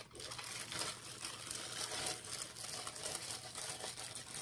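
Packaging rustling and crinkling with small irregular clicks as a boxed wax warmer is handled and worked out of its box.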